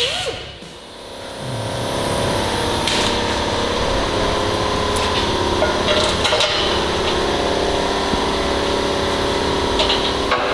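Workshop noise: a steady droning hum with a few scattered tool clicks and knocks.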